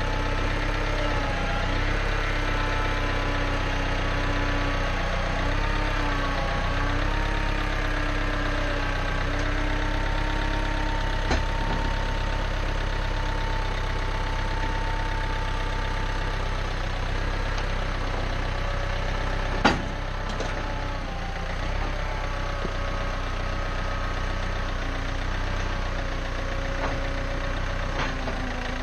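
John Deere 110 backhoe's engine running steadily, its tones wavering and shifting in pitch as the load changes. A light knock comes a little before halfway, and a louder, sharper knock about two-thirds of the way through.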